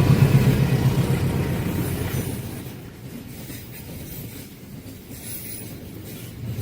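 Train rolling past on the rails, a loud low rumble that falls away about two seconds in and carries on as a quieter rolling rumble of wheels.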